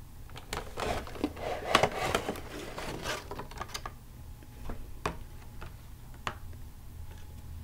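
Clear plastic packaging crinkling as it is handled and pulled off a toy figure, dense crackling in the first three seconds, then a few scattered sharp clicks.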